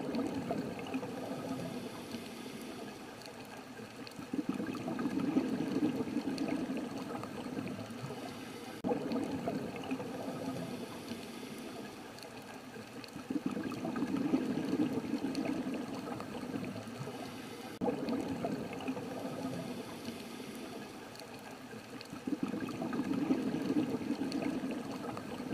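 Watery rushing and bubbling over a steady hiss, swelling for a few seconds about every nine seconds.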